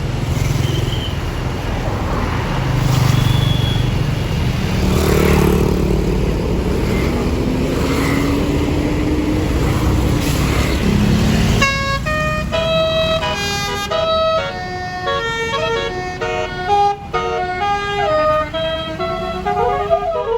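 Tour bus engine running, then about twelve seconds in a basuri telolet horn, a multi-tone musical air horn, starts playing a tune of quick stepped notes.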